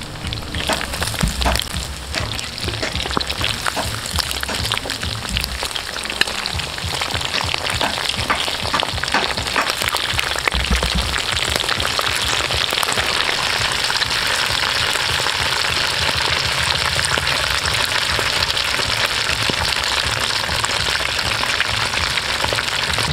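Hot oil sizzling and crackling steadily as coated pieces of meat deep-fry in a metal wok, with a few knocks from the tongs in the first half.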